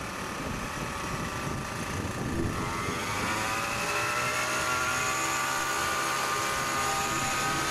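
Helicopter running, a steady rotor and engine noise; about two and a half seconds in a whine rises, then holds steady as it spools up.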